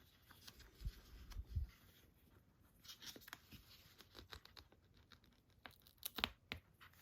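Faint rustling, sliding and light clicks of card packaging being handled as a cardboard J-slip is eased off a rigid slip box, with a few sharper clicks about six seconds in.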